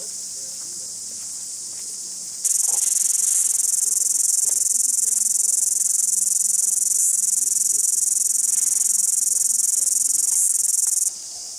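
Chorus of cicadas in native bush: a dense, steady, high-pitched shrill that jumps much louder about two and a half seconds in and drops back just before the end.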